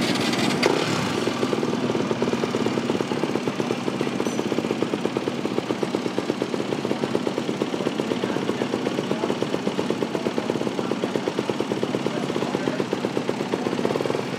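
Honda motocross bike's single-cylinder four-stroke engine idling, a fast, even pulse that holds steady throughout.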